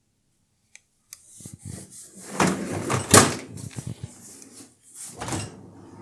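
Beko dishwasher's door and wire racks being handled: a run of rattles and knocks, the loudest a sharp clunk about three seconds in as the door shuts, with more knocks a little after five seconds.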